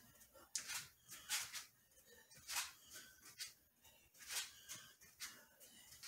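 A man's short, sharp exhalations as he shadowboxes: about eight quick hisses of breath at an uneven pace, each lasting a moment.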